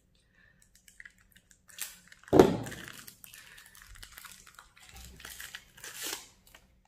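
Clear plastic wrap crinkling and tearing as it is pulled off a rifle magazine, in irregular crackles, with one brief louder noise a little over two seconds in.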